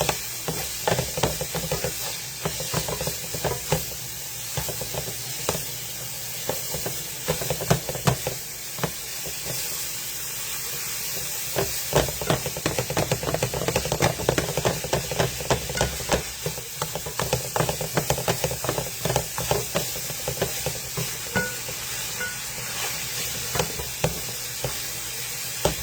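Food sizzling in a frying pan with a steady hiss while it is stirred, the spatula scraping and clicking against the pan at an irregular pace.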